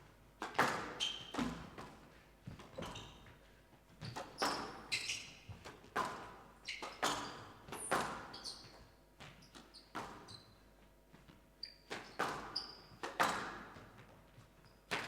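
Squash rally: the ball cracks off rackets and the court walls about once a second, each hit echoing in the hall, with short high squeaks of court shoes between the hits.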